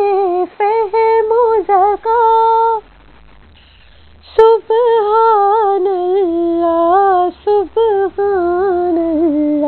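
A single unaccompanied female voice vocalises the nazm melody in ornamented, wavering held notes. It breaks off for about a second and a half near the middle and comes back in with a click.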